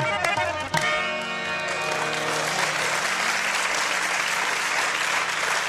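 A live qawwali ensemble's harmonium and percussion end a passage with a final strike about a second in, the last chord held briefly and fading, then an audience applauding steadily.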